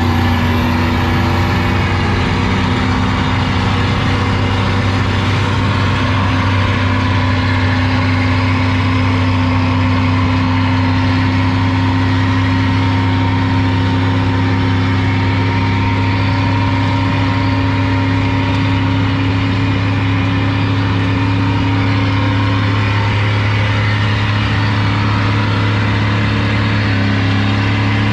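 Truck engine held at steady revs during a burnout, its pitch barely changing, with a steady hiss over it; the pitch shifts slightly near the end.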